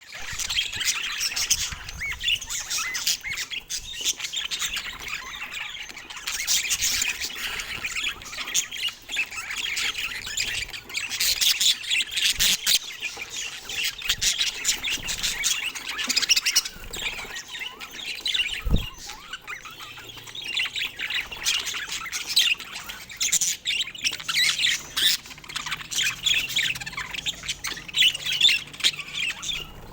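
Budgerigars chirping and warbling in a dense, unbroken chatter of quick high twitters and squawks.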